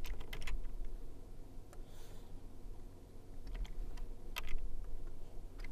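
A few scattered light clicks from a computer pointing device being used to hand-write on screen, over a faint low hum.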